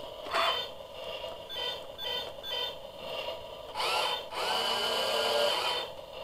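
Small electric gear motors of a toy remote-control grappler crane whirring in several short runs as it is maneuvered, with a longer steady run in the second half.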